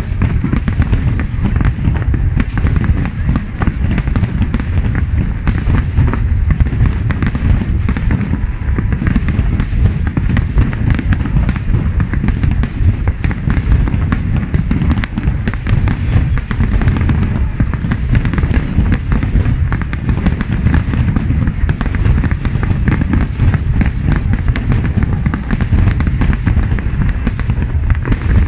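Aerial firework shells bursting in a dense, unbroken barrage: overlapping booms with crackling.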